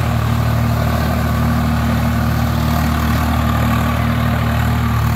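Swaraj tractor's diesel engine running steadily as it drives a rotary tiller, a constant low engine note.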